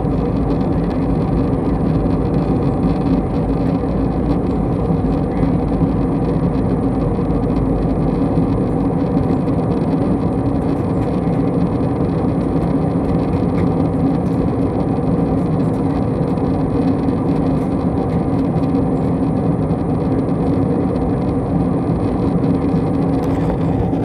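Steady aircraft cabin noise heard inside the passenger cabin: engine noise and rushing air with a low hum of several steady tones, unchanging throughout.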